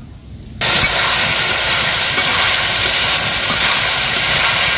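Potato and taro pieces sizzling in hot oil and spices in an aluminium karahi while a metal spatula stirs them. The loud, steady sizzle starts suddenly about half a second in, after a faint, quieter background.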